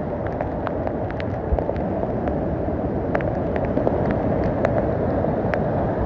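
Waterfall cascading over rocks: a steady rush of white water, with scattered sharp splashes through it.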